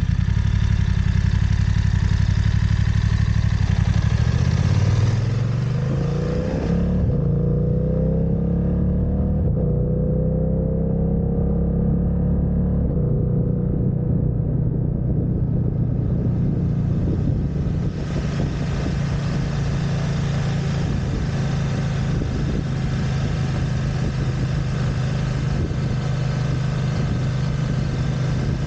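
Motorcycle engine idling, then pulling away about five seconds in, its revs rising in steps through the gears. It then runs steadily at road speed.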